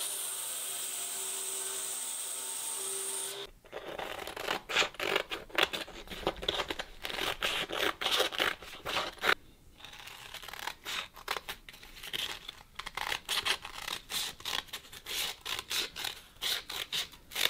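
A belt grinder grinding the teeth off a steel file, a steady whine with a high tone, which cuts off about three and a half seconds in. Then scissors snip through a sheet of sandpaper in many quick, irregular cuts, louder than the grinding.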